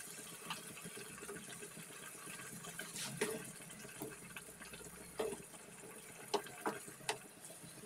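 Onion-masala gravy bubbling faintly in a pan around chicken legs, with a wooden spatula knocking against the pan a few times.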